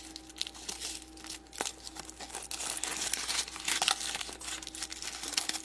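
Foil wrapper of a Choco Treasure chocolate egg being crinkled and peeled off by hand: a steady run of irregular crackles and rustles.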